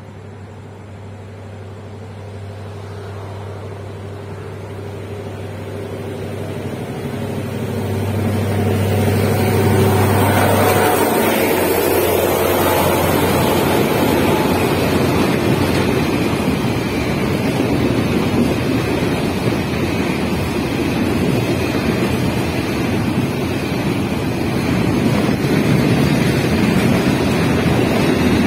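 Container freight train approaching and passing close by. The locomotive's low engine hum grows louder and drops in pitch as it goes past about ten seconds in, followed by the steady rolling rush of the container wagons' wheels on the rails.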